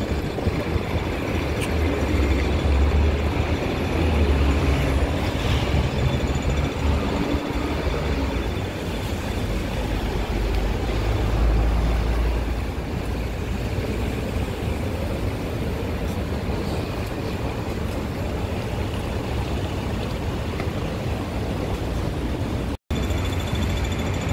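Busy city-street traffic noise: a continuous rumble of passing road vehicles that swells louder a few times, cutting out for an instant near the end.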